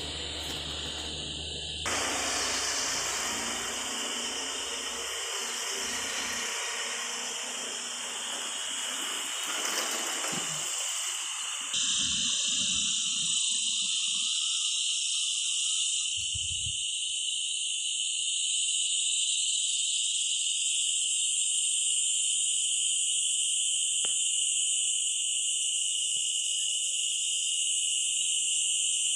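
A steady, high-pitched chorus of insects that carries on throughout. For the first ten seconds or so, a loud rushing noise lies over it; after that the insects are heard alone.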